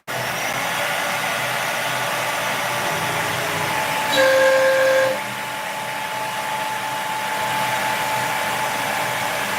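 A CNC router's spindle and dust extractor running steadily as the cutting cycle starts. A louder steady tone sounds for about a second near the middle.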